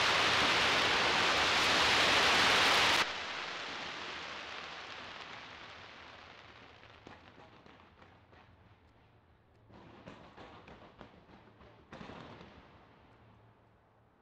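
Fireworks: a loud, dense crackling hiss that cuts off abruptly about three seconds in, then a fading trail of scattered crackles and pops, with two brief flurries of crackling later on.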